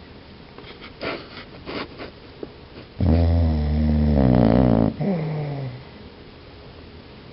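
Sleeping dog snoring: soft breathy snuffles, then one loud, drawn-out snore about three seconds in that lasts about two seconds, its pitch sliding down before it fades.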